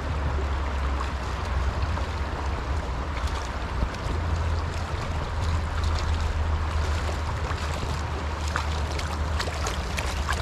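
Small stream running, a steady rush of water, with a low rumble of wind on the microphone and scattered faint clicks through the second half.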